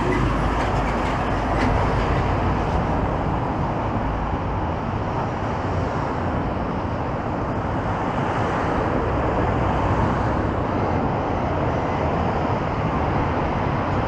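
Steady road traffic noise from cars passing on a busy city street, a continuous rumble and hiss.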